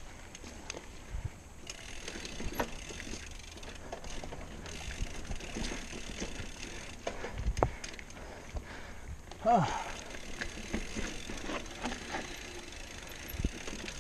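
XC hardtail mountain bike ridden over loose, rocky singletrack: tyres crunching over dirt and stones, the bike rattling, and the rear hub's freewheel ticking, with scattered knocks as the wheels hit rocks. About nine and a half seconds in comes a brief sound falling in pitch, the loudest moment.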